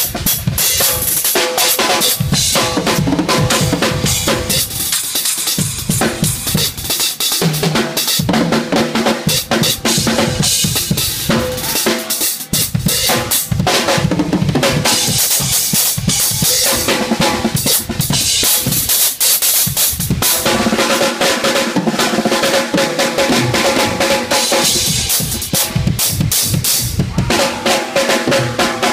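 Drum kit solo: a dense, unbroken stream of strokes on the drums and cymbals.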